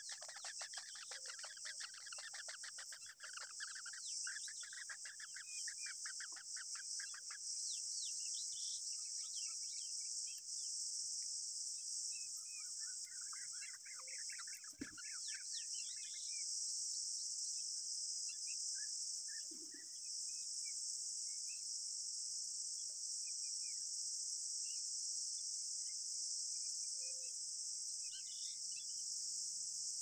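Rufous treepie nestlings begging: rapid, evenly repeated calls for the first seven seconds or so, a burst of chirps about halfway through, then scattered single chirps. Throughout runs a steady high-pitched insect drone, the loudest sound.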